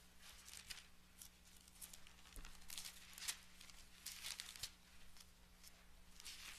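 Faint rustling of thin Bible pages being turned, a handful of short soft rustles spread through, over a low steady hum.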